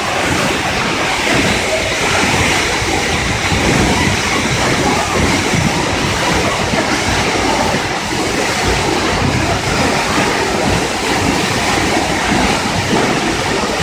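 Waterfall pouring steadily: a loud, even rush of falling water with no change in level.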